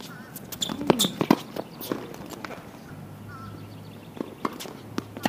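Tennis rally on a hard court: sharp racket-on-ball hits and ball bounces, the loudest a quick cluster about a second in, with players' footsteps and shoe scuffs between them.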